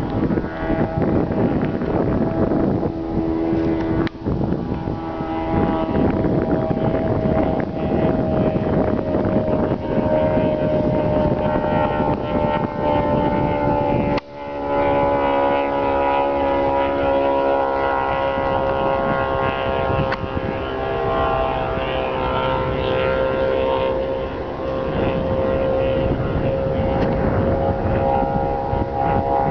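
Piston engine of a homebuilt propeller airplane droning steadily in flight, its pitch sliding slowly down as the plane passes, with a brief dropout about halfway through. Wind buffets the microphone underneath.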